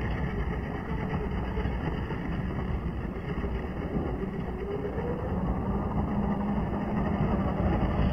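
Tamiya Grasshopper electric RC buggy driving hard over loose dirt: a steady low rumble of the motor and the tyres churning gravel, growing a little louder near the end.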